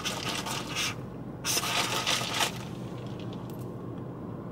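Plastic drinking straw scraping as it is pushed down through the lid of an iced matcha cup, in two rasping strokes.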